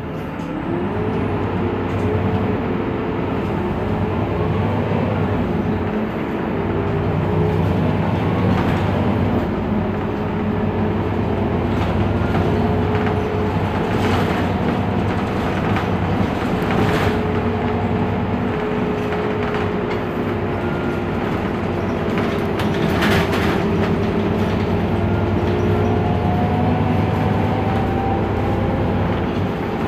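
Heuliez GX 327 city bus under way: a steady low engine and drivetrain drone, with a whine that rises and falls in pitch as the bus changes speed, and scattered knocks and rattles.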